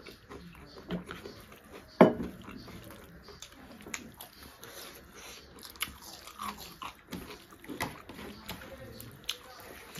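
Close-up eating sounds of people eating rice and fish curry with their hands: chewing, lip-smacking, crunching, and the wet squish of fingers in the food, with a sharp louder smack about two seconds in.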